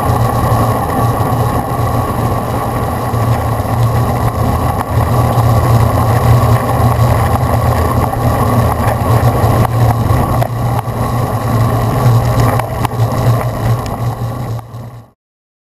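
Steady, loud wind noise on the microphone of a GoPro Hero2 carried on a bicycle riding along a tarmac road. It fades and cuts off suddenly just before the end.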